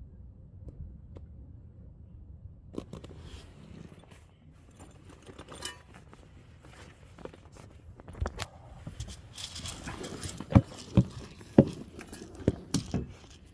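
Rustling and handling of a bag of dry cat food, with a run of sharp clicks and knocks in the second half.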